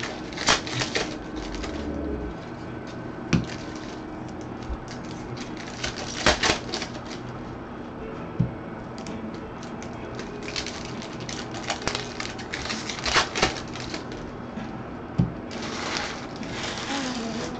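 Trading cards being handled and flipped through by gloved hands: sharp clicks and quick runs of snapping and rustling card edges and wrappers. The runs come in several separate clusters a few seconds apart.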